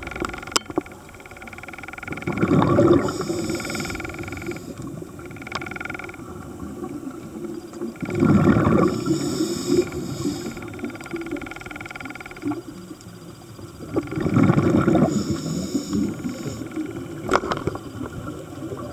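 Scuba breathing heard underwater: a diver's regulator breathing in between three bubbling exhalations, one about every six seconds. A few sharp clicks near the start and one near the end.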